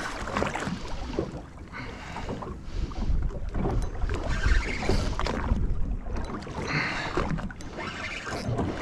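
Wind buffeting the microphone and sea water lapping and slapping against a small boat's hull, in an uneven wash with scattered splashy knocks.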